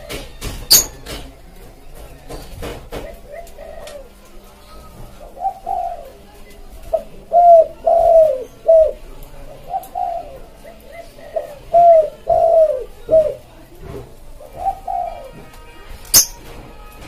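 Spotted dove (tekukur) cooing, a series of short arched coos in repeated phrases that start about five seconds in. Sharp clicks come near the start and once more near the end.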